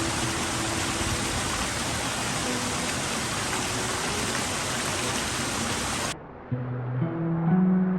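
Steady rush of falling water from a pond waterfall, with soft background music under it. The water sound cuts off abruptly about six seconds in, leaving only the music.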